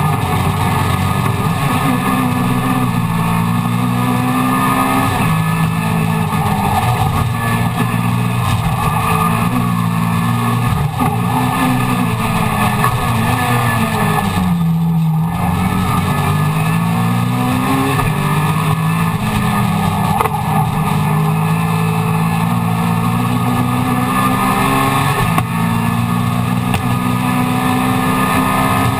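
Mini Miglia race car's A-series four-cylinder engine heard from inside the cockpit, running hard on track. The pitch climbs and falls back repeatedly through the gear changes, with one lift off the throttle about halfway through before the revs climb again.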